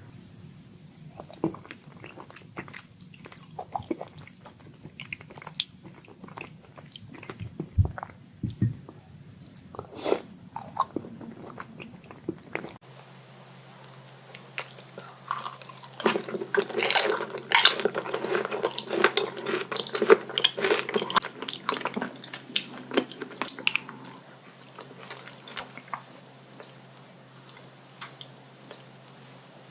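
Close-miked wet chewing and biting of raw tuna: soft, irregular smacking and squishing mouth sounds. The background hum changes abruptly near the middle, and the chewing is busiest and loudest shortly after that.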